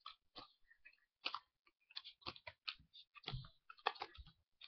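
Blue Bicycle jumbo playing cards being dealt face down one by one onto a wooden table: a faint, irregular run of soft card snaps and taps, with a couple of duller thumps in the second half.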